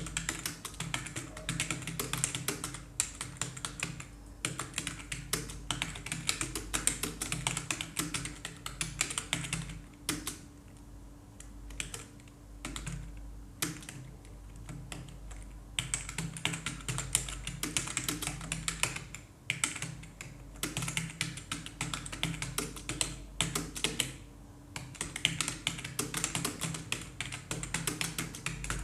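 Fast typing on a computer keyboard, dense runs of keystrokes with a slower, sparse stretch of only a few keys near the middle, over a steady low hum.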